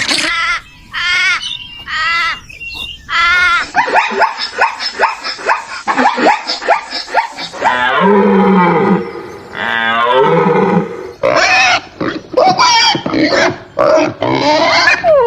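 A series of animal calls: short pitched cries in quick succession, two longer drawn-out calls about eight and ten seconds in, then more short cries.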